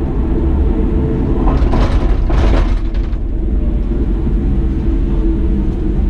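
Ropeway gondola cabin running along its cable: a steady low rumble with a faint steady hum, and a louder burst of noise between about one and a half and three seconds in.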